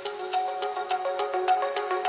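Background music: a light melody of short, quickly changing notes over a steady ticking beat.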